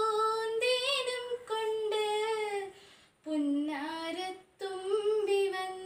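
A girl singing a Malayalam Onam song solo and unaccompanied, in long held notes that waver gently in pitch. The singing breaks off briefly about three seconds in and again a second and a half later.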